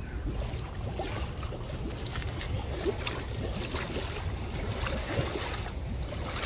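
Water splashing and slapping as a crowd of koi churn at the pond surface, irregular small splashes over a steady low rumble of wind on the microphone.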